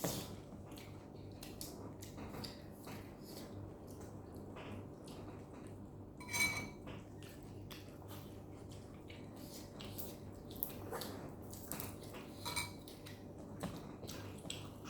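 Cutlery clinking and scraping against dishes while eating: scattered light clicks, with two louder ringing clinks, one about six seconds in and another a couple of seconds before the end.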